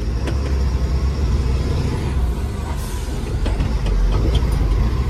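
Truck's diesel engine running steadily, a low rumble heard from inside the cab as it drives slowly, with a few faint clicks in the middle part.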